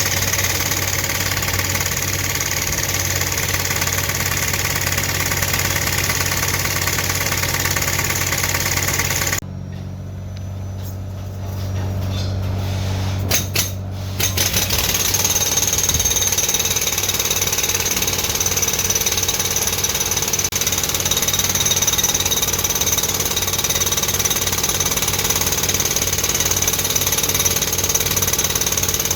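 Construction machinery running: a steady engine hum under a loud, dense rattling noise. About a third of the way in the rattle drops away for several seconds, leaving only the engine, then comes back.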